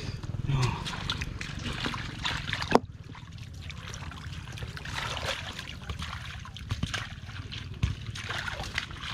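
Wading through shallow water and soft mud: small splashes, sloshing and wet squelching. There is one sharp knock about three seconds in.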